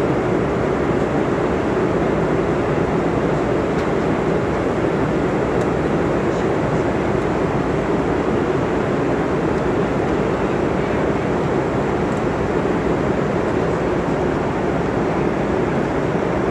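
Steady in-flight cabin noise inside a Boeing 747-400: an even rush of airflow and engine noise, unchanging throughout.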